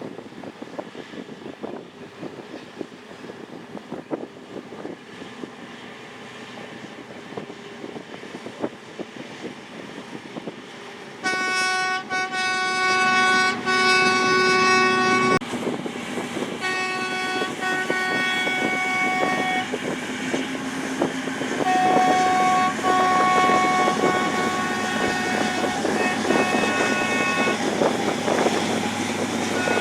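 A steady rumble of engine and wind noise, then about a third of the way in a horn sounds three long blasts at a steady pitch, several notes together, over the continuing rumble.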